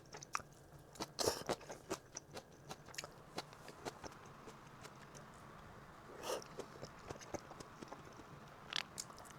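A person chewing salad close to the microphone: faint, irregular crunching clicks, with a few louder bites.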